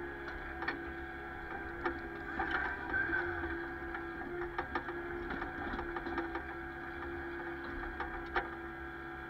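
Excavator running under load, a steady hydraulic whine over the engine, with scattered sharp clicks and knocks as the bucket and hydraulic thumb grip and work a tree stump.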